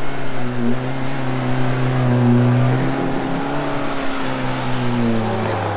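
Suzuki Jimny's engine revving hard under load as it tries to claw up a rutted snowy, muddy slope. The revs hold high, then drop about five seconds in as the climb stalls for lack of axle articulation.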